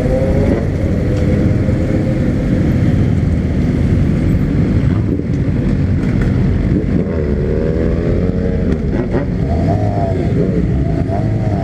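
Motorcycle under way: engine running with a dense rumble and wind rush, the engine note rising and falling with the throttle a few times in the second half.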